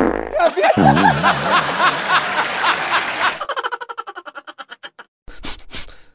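Cartoon fart sound effect: a long, wavering, buzzy blast that breaks into a fast, fading sputter about halfway through, with a few short pops near the end.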